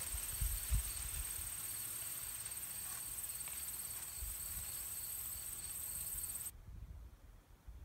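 Field insects trilling: one steady, high-pitched, finely pulsing trill that cuts off suddenly about six and a half seconds in. A few soft low thumps near the start.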